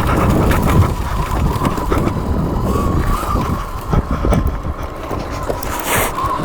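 Sur Ron electric dirt bike riding along a trail: a steady high whine from the motor, over heavy rumbling noise and scattered knocks and rattles from the bike over rough ground. A brief louder rush of noise comes near the end.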